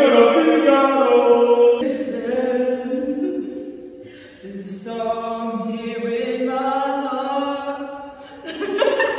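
Chant-like singing: a voice holding long notes one after another, with a brief dip about four seconds in before a lower note begins.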